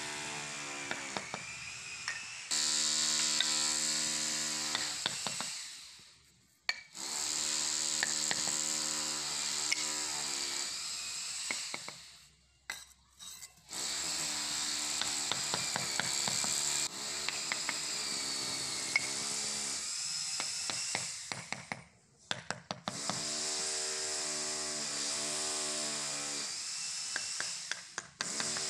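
Background instrumental music with a steady sustained tone, fading out and back in several times, with scattered light taps of a hammer setting clay bricks into a mortar bed.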